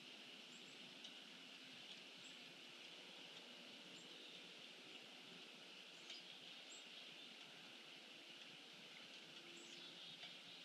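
Faint outdoor ambience with a steady hiss, and a handful of short, high bird chirps scattered through it.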